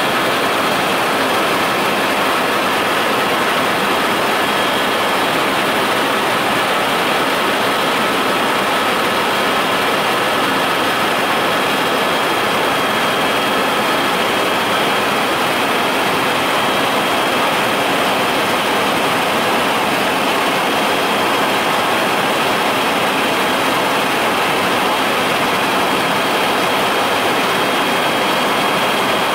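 Steady, loud engine drone with a few constant high-pitched whines over it, unchanging throughout.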